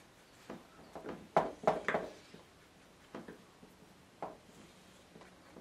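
A paintbrush dabbing and tapping: a quick cluster of soft taps about a second in, then a few single taps.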